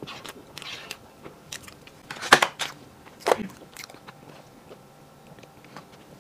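Close-miked mouth sounds of eating cake and drinking: chewing and swallowing, with two louder wet mouth sounds about two and three seconds in, and sips through a straw.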